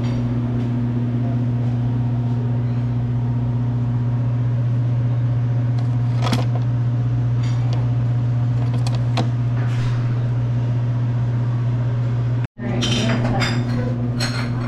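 A steady low machine hum, with a few light clicks about halfway through and again near the end.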